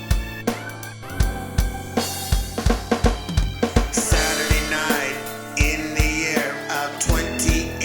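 Instrumental intro of a pop song: a drum kit with a steady kick-drum beat about twice a second and snare hits under sustained chords, with a higher melodic line coming in about four seconds in.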